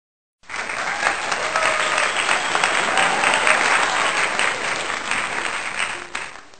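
Crowd applause, many hands clapping, laid in as a sound effect. It starts abruptly about half a second in, fades near the end and cuts off.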